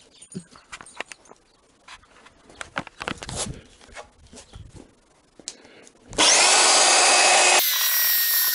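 Light handling clicks and knocks, then about six seconds in an electric sander starts suddenly and runs loud and steady with a whine as it sands the glass of a double-glazed window pane to frost it.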